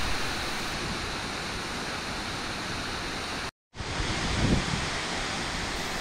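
Steady rush of falling water from the tall, multi-tiered Chagama Falls, running at fairly high flow. The sound cuts out completely for a moment about halfway through, then resumes.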